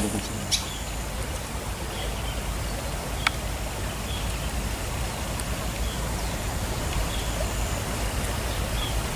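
Steady rushing outdoor noise with a low rumble underneath, faint short high chirps scattered through it, and two light clicks, about half a second in and a little after three seconds.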